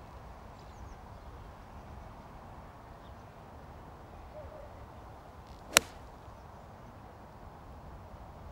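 A golf club striking the ball on a full swing: a single sharp crack about two-thirds of the way through, over faint low background noise.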